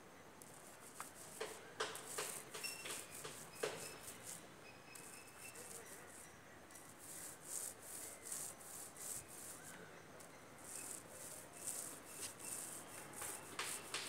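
Paint roller on a long pole being worked up and down a rough plaster wall: a faint, repeated rasping, one stroke after another, with a few sharp clicks in the first few seconds.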